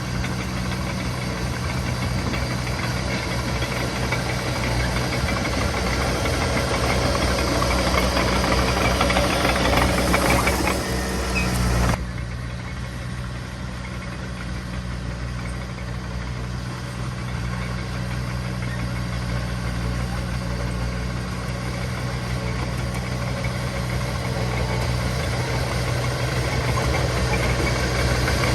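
Diesel engine of heavy earthmoving machinery running steadily. It grows louder to a peak, drops off abruptly about twelve seconds in, then slowly builds again.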